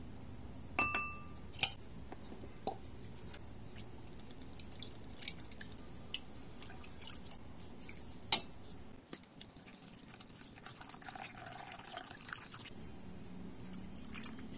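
A few clinks against a glass bowl, the first ringing briefly, then one sharp knock about eight seconds in. After it comes a few seconds of vinegar mixture pouring and splashing onto chopped onion, garlic and chilies in the bowl.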